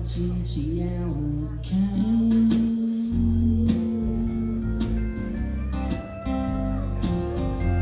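Live acoustic band playing a country-blues tune: strummed acoustic guitars over snare drum hits, with a long held note in the middle and slide guitar notes bending in the second half.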